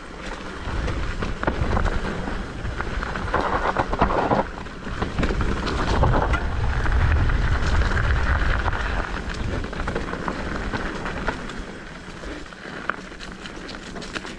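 Mountain bike moving over a rough, rutted dirt trail: tyre crunch and frame and chain rattle under a heavy wind rumble on the microphone. The rumble is strongest about halfway through, then eases.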